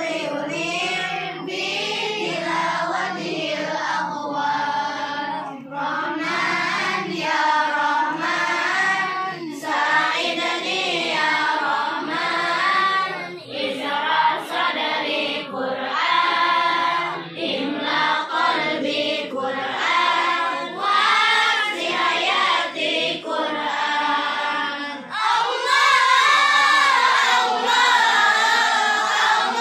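A group of children singing sholawat, Islamic devotional songs praising the Prophet, together in chorus. About 25 seconds in the singing gets louder.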